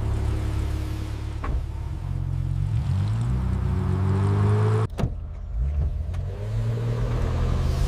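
Car engine revving, its pitch rising steadily for a couple of seconds. It is cut off abruptly by a sharp click about five seconds in, then rises again near the end.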